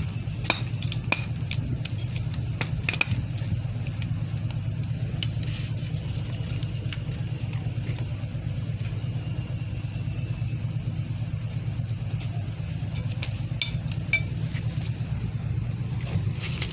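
Steady low motor-like hum with scattered sharp metallic clicks and ticks as steel wire rope strands are worked around a steel spike during a splice.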